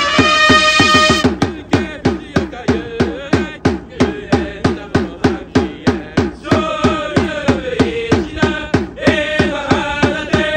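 Japanese baseball cheer song played multitracked by one performer: trumpets finish a short phrase at the start over a steady marching snare drum beat of about four strokes a second. The drum then keeps the beat while voices chant the cheer lyrics in unison.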